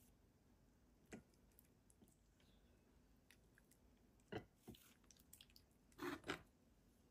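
Faint wet squelches and light spoon scrapes as thick curry is spooned into a ceramic bowl. A few short sounds come about a second in, twice around four and a half seconds in, and a cluster near the end.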